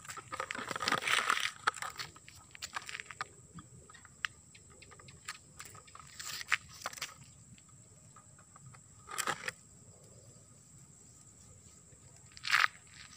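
A dog biting and chewing a plastic bottle: irregular crackles and crunches of the plastic, densest in the first couple of seconds, with a few louder bursts later on.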